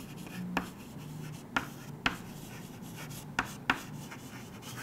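Chalk writing on a chalkboard: a handful of sharp taps of the chalk striking the board, between quieter scratching strokes.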